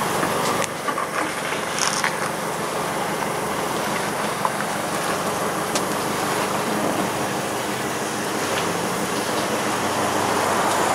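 Steady vehicle engine noise with an even wash of hiss and a few faint clicks.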